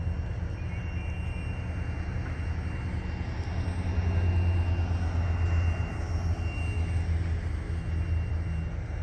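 Low, steady rumble of a distant engine that swells through the middle and eases again.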